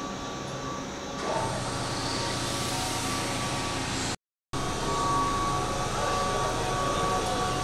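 Keihan 8000-series electric train running, a steady mechanical noise with a few held hum tones that swells louder about a second in. The sound cuts out completely for a moment near the middle.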